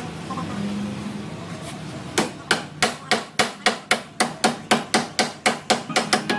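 Hammer blows struck at a steady pace, about four a second, starting about two seconds in.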